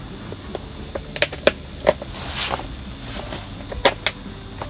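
A PVC drain fitting being worked into the drain hole of a plastic geomembrane tank liner by hand: a few sharp plastic clicks a little over a second in, a short rustle of the liner around the middle, and two more clicks near the end.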